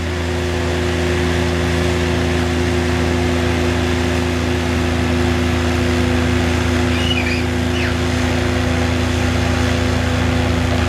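Argo Centaur amphibious vehicle's engine running at a steady speed as the vehicle drives through the water, a constant drone that holds one pitch throughout.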